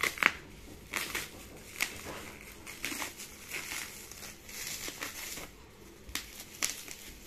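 Bubble wrap crinkling and rustling as it is pulled off a boxed pen tablet, with scattered sharp crackles; the loudest come just after the start.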